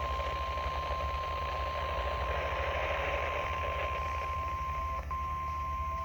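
NOAA Weather Radio's 1050 Hz warning alarm tone, the signal that a warning broadcast follows: one steady high tone over radio static and a low hum, with a brief dropout about five seconds in, ending at the close.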